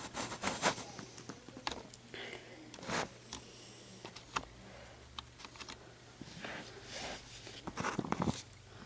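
Light handling noises of fingers moving a small plastic toy figurine: scattered soft clicks, taps and rustles, one a little louder about three seconds in, over a faint steady low hum.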